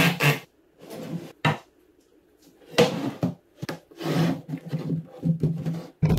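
A drill finishes a short burst, then pine boards are handled on a wooden workbench: a sharp wood-on-wood knock about a second and a half in, another near the middle, then a run of shorter clunks and rubs as pieces are shifted and set down.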